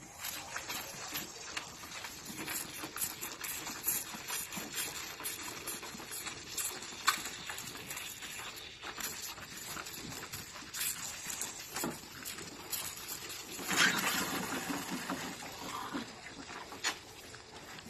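Dairy calves sucking milk from rubber-teat bottles held in a rack: a steady run of irregular wet sucking clicks, with a louder stretch of noise about fourteen seconds in.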